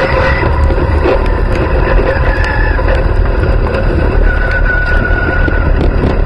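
Dirt late model race car's engine running steadily off the throttle while the car slows from about 45 to 30 mph, heard from inside the cockpit.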